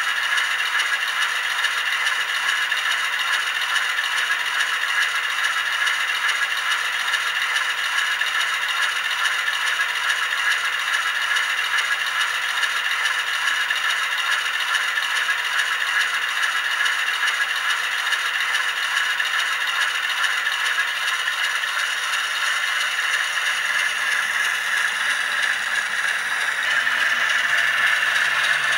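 ESU sound decoder in a Märklin H0 V36 model diesel locomotive playing its diesel-engine sound through the model's small speaker: a steady, thin, rattling engine noise. A deeper hum joins it near the end.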